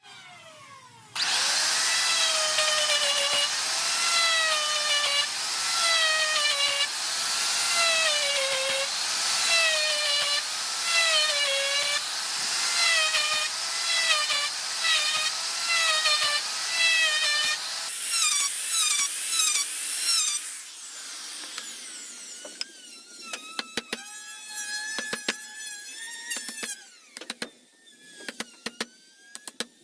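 Electric drilling machine boring into wood, its motor whine dipping in pitch and recovering about once a second as the bit takes load. Near the end it eases off and winds down, with a run of light clicks.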